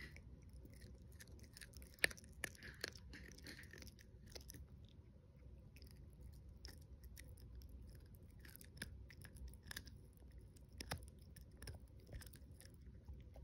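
13-week-old chihuahua puppy gnawing on a hand-held bully stick: quiet wet chewing with many scattered sharp clicks of teeth on the stick, the loudest about two seconds in.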